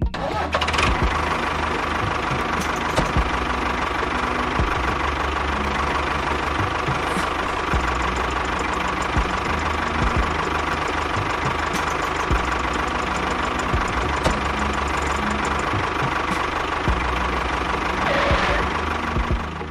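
Engine running steadily, with occasional sharp knocks over it.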